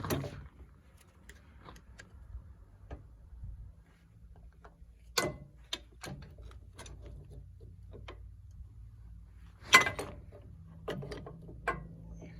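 Metal tools clicking and knocking on a hydraulic cylinder as its wire retaining clip is worked out of the end cap, with sharper metal clanks at the start, about five seconds in and, loudest, near ten seconds. A faint low hum runs underneath.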